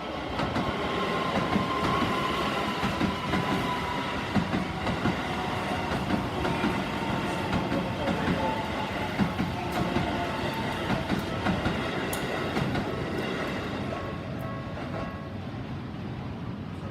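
Keisei Oshiage Line train running over a level crossing, its wheels clacking over the rail joints, with the crossing's warning bell ringing underneath. The train swells in about half a second in and eases off over the last few seconds.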